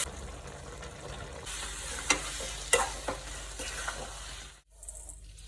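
Food frying in a pan while a spoon stirs it, with a few sharp clinks of the spoon against the pan. The sound drops out for a moment about four and a half seconds in, then the frying resumes.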